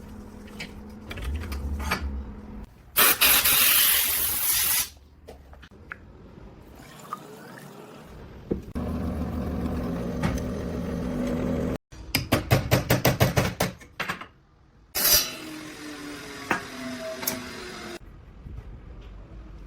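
A string of short knife-making workshop sounds: a loud hissing rush about three seconds in, steady noise later on, then a quick run of even, rapid strokes and a sharp burst.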